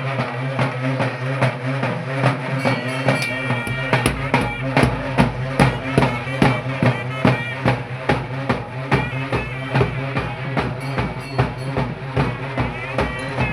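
Music with a steady drum beat over a held low tone; a deep bass drum joins about three and a half seconds in.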